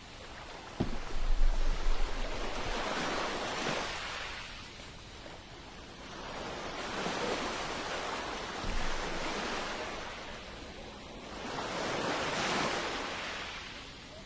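Ocean waves washing in and receding, about one swell every four to five seconds. A sharp thump and a short low rumble come about a second in.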